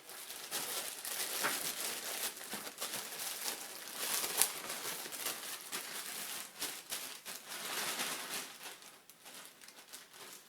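Packaging crinkling and rustling as it is opened by hand to unwrap a new replacement part, a continuous run of crackles that thins out near the end.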